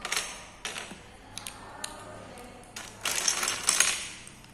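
Plastic Lego bricks clicking as they are handled, then a longer clatter about three seconds in as a hand picks through a loose pile of bricks.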